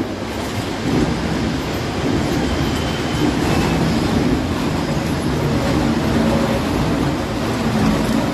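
Valon Kone ring debarker running as logs about 14 inches across feed through it and are stripped of their bark: a steady, loud mechanical rumble with continual clattering and knocking.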